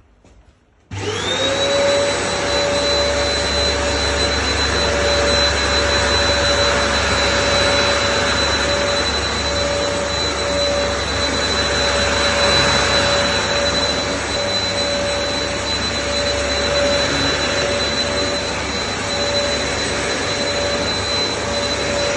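Dyson DC03 vacuum cleaner switching on about a second in, its motor whine rising quickly to a steady pitch, then running steadily while it picks up test powder from the floor.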